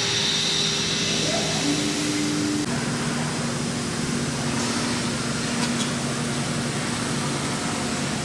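CNC gantry router running, its 5.5 kW spindle giving a steady machine hum and rushing hiss. About two and a half seconds in, the pitch of the hum steps down.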